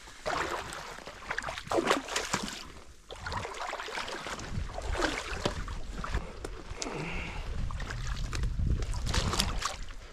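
Boots wading through shallow lake water: irregular sloshing and splashing steps.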